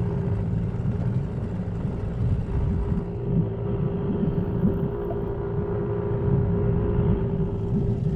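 Small boat's motor running steadily, a constant hum over low rumble, with wind buffeting the microphone.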